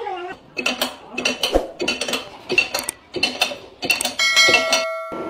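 Repeated sharp metal clanks, about two a second, from the steel bar and screw jig of a truck-tyre spreading rig. About four seconds in, a bell-like notification ding rings for most of a second and cuts off abruptly.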